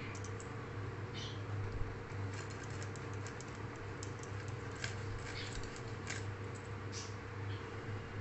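Hilsa being cut into pieces on a boti blade: irregular small clicks and crunches as the blade goes through flesh and bone, over a steady low hum.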